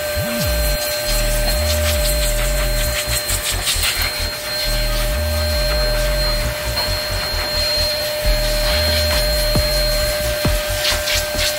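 Pet blow dryer running steadily, a constant motor whine with a rush of air out of its hose nozzle as it dries a dog's coat.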